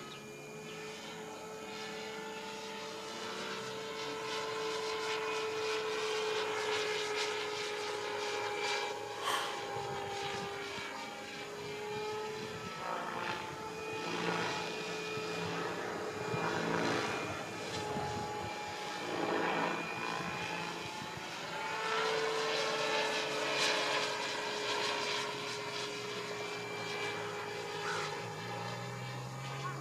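Radio-controlled model helicopter flying overhead: a steady whine from its motor and rotor. The whine's pitch dips briefly a little before the middle, and rushing rotor noise swells and fades as it manoeuvres.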